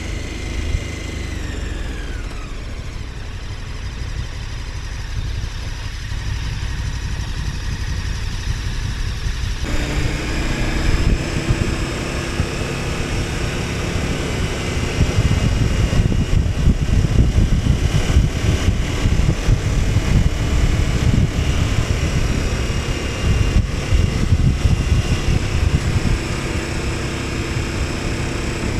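KTM 1290 Super Adventure S's V-twin engine under way, its note falling off in the first couple of seconds, then picking up abruptly about ten seconds in and pulling harder and louder, with a heavy low rumble of wind and road noise beneath.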